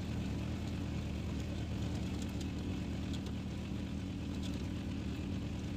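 Steady engine and road noise of a motor vehicle driving along a road, heard from inside the vehicle, with faint light rattles.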